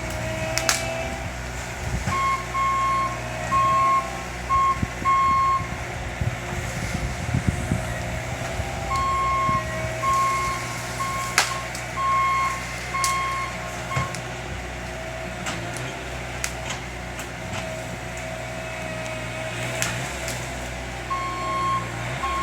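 A heavy vehicle's reversing alarm beeps in evenly spaced runs of about two beeps a second, stopping and starting again, over its steadily running engine. A few sharp knocks sound now and then.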